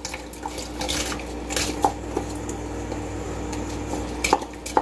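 Wooden spoon scraping and tapping soaked rice out of a glass bowl into a steel pot: a string of irregular light clicks and knocks, the sharpest near the end, over a steady faint hum.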